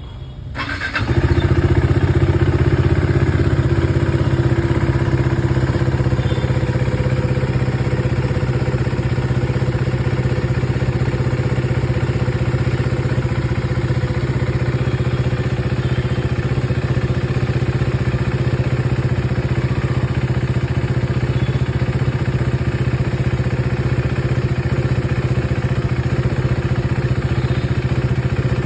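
KTM Duke 390's single-cylinder engine cold-starting: it catches about a second in and settles into a steady idle. The idle is slightly louder for the first few seconds, then a little quieter from about six seconds in.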